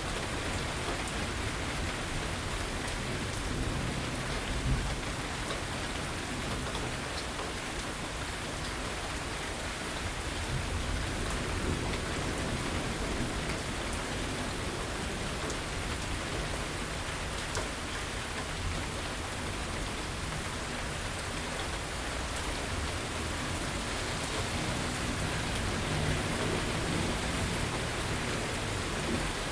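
Steady rain falling, a dense even hiss of drops, with a few low rumbles that swell and fade underneath it.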